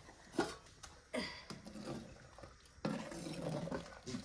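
A ladle stirring and splashing thin, steaming soup in a cooking pot: a few short sloshes and knocks at the pot.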